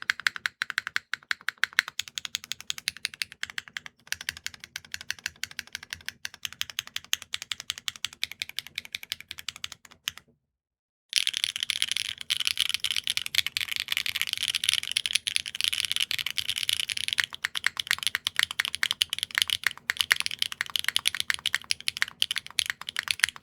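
Typing on a custom mechanical keyboard with HMX Yogurt S linear switches, an aluminium plate and GMK keycaps: a quick run of sharp keystroke clacks. It breaks off briefly about ten seconds in, and the keystrokes then come faster and denser.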